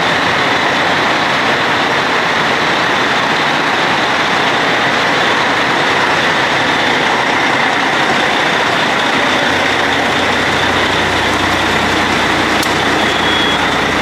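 Steady loud noise of a heavy truck running, with a low rumble joining about ten seconds in. A truck's reversing beeps start near the end.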